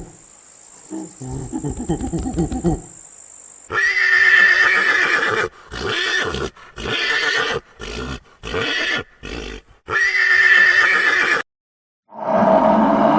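Horse neighing: several loud whinnies in a row, broken off by abrupt cuts. Before them comes a low pulsing grunt, and near the end a different deep roar-like call begins.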